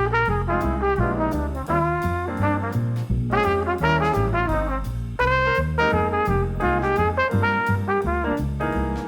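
Background music: brass, with trumpet and trombone lines sliding between notes over a steady bass and beat.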